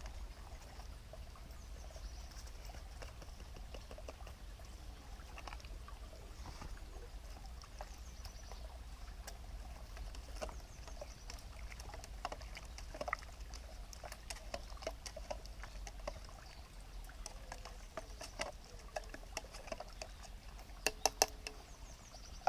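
Quiet scattered clicks and light taps of camp cooking at a burning wood stove: a utensil working in a metal cooking pot and the fire crackling. A quick run of sharper taps comes near the end.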